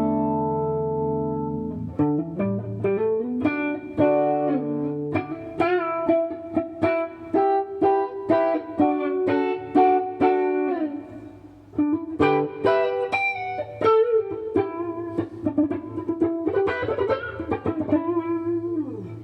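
Kiesel Vader electric guitar played clean on its Kiesel Polarity neck pickup in active mode. A chord rings out and fades, then single-note melodic lines follow, with string bends.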